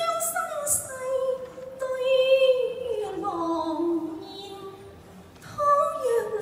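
A woman singing a Cantonese opera aria into a microphone, holding long notes that slide down in pitch, with a new phrase starting near the end.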